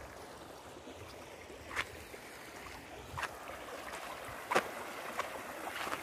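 Faint, steady outdoor background noise, an even light rushing, with a few soft isolated ticks spaced a second or more apart; it grows slightly louder near the end.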